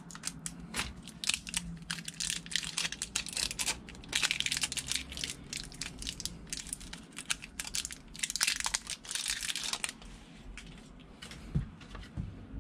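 Plastic packaging crinkling and crackling as it is handled and pulled open, dense for about ten seconds, then a few scattered clicks near the end.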